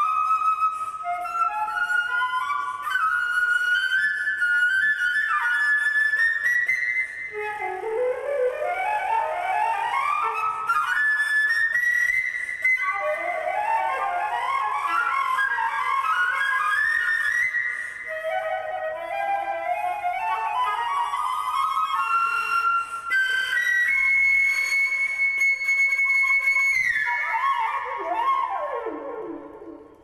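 Solo concert flute playing rapid, birdsong-like flurries of notes that sweep upward again and again, then a long high held note late on, followed by quick falling runs that die away near the end.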